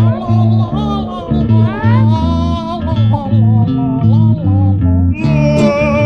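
Music: a steady plucked bass line under guitar and a melody line with a few short sliding notes.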